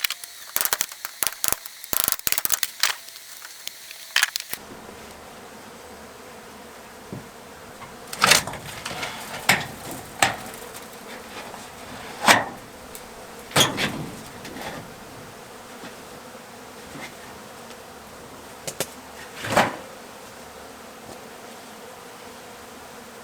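A quick run of sharp cracks and clicks for the first four seconds or so, the sound of old wooden boards splintering. It stops abruptly and gives way to the steady buzz of a large honey bee colony. Every second or two a bee flies close past the microphone, heard as a loud buzz that swells and fades.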